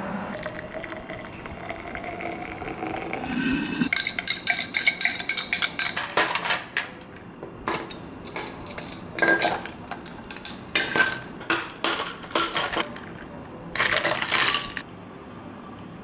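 Liquid poured into a tall glass, its tone rising as it fills, then ice cubes dropped in one after another, clinking sharply against the glass and the metal spoon standing in it.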